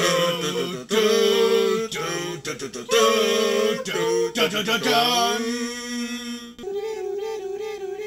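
A voice singing a tune unaccompanied in a series of held notes, ending on one long wavering note.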